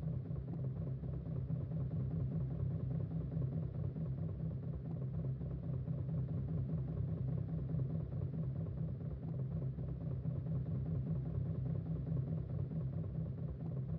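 A steady low droning rumble, even in level, with no distinct events.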